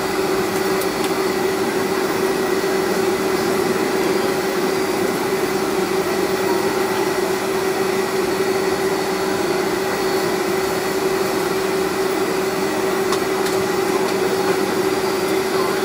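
Boeing 757's jet engines running at taxi power, heard inside the cabin beside the wing: a steady whooshing hum with a constant droning tone.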